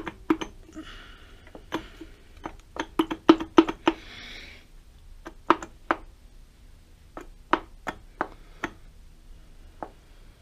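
Metal clicks and knocks as the gears and small parts of a lathe apron's gear train are handled and pried at by hand, many sharp separate strikes, bunched most thickly about three to four seconds in and sparser after.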